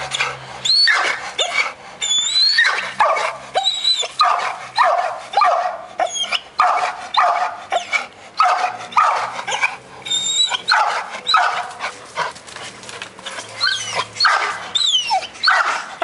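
A pit bull barking over and over, about one to two loud barks a second.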